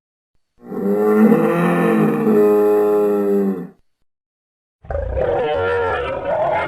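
Dinosaur roar sound effect made for Sinotyrannus: one long pitched roar lasting about three seconds, then after a short pause a shorter, wavering growl near the end.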